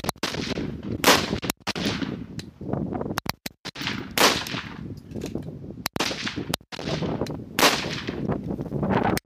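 Rifles firing rapid-fire along a match firing line: sharp shots at irregular intervals, often less than a second apart and sometimes overlapping, each followed by an echoing tail.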